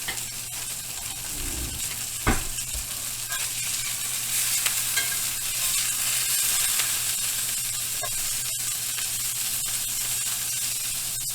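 Burger patties sizzling steadily as they fry in a pan after being flipped, with a single sharp knock a little over two seconds in.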